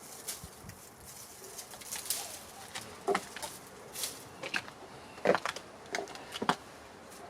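Irregular rustling and scraping with several short dull knocks, the loudest about three, five and six and a half seconds in: potatoes being dug out of the soil by hand.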